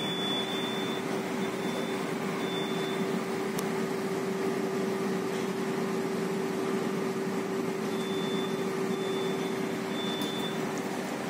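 Steady machinery and ventilation hum on a container ship's navigation bridge, with one constant low tone running through it. A faint, thin high-pitched tone comes and goes, near the start, a few seconds in, and again near the end.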